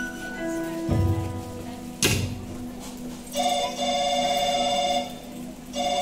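Soft background music with a low thud about a second in and a sharp knock at about two seconds, then a telephone ringing: a warbling ring about a second and a half long, a short pause, and a second ring starting near the end.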